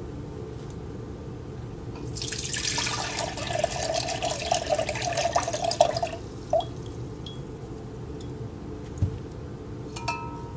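Coconut water pouring from an opened Thai coconut through a strainer into a glass measuring cup: a steady splashing stream starting about two seconds in and lasting about four seconds, followed by a few drips and a small clink near the end.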